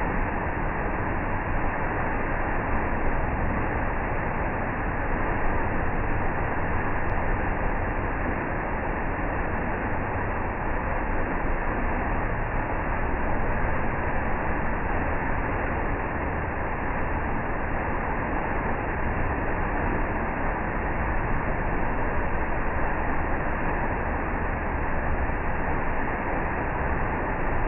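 Waterfall rushing: a continuous, even wash of falling water that holds steady throughout.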